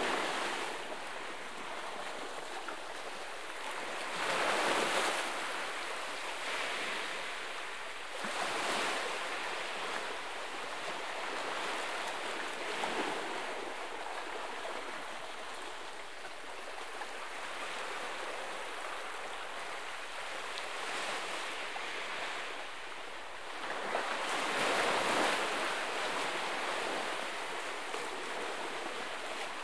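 Small sea waves washing against a rocky shore, a steady wash of water with louder surges every few seconds as waves break, the biggest about 25 seconds in.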